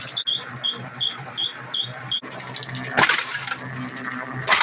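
Homemade can crusher running on its electric motor with a steady hum and a regular high chirp about three and a half times a second. After a sudden break, two sharp crunches about a second and a half apart as cans are crushed between the spinning lawn mower tires.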